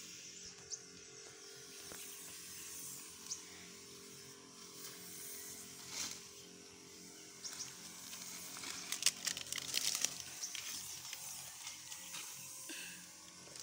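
Knapsack sprayer misting herbicide over weeds, a soft steady hiss of spray, with footsteps rustling and crunching through dry corn leaves and grass (sharper crackles about six and nine to ten seconds in), over a steady low hum.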